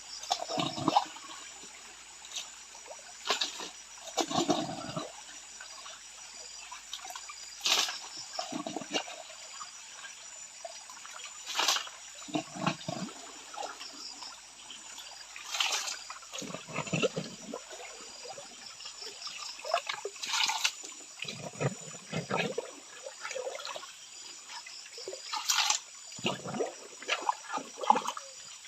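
Water sloshing and splashing in a hand-held gold pan as it is swirled and dipped in a shallow stream, with a splashy surge every few seconds.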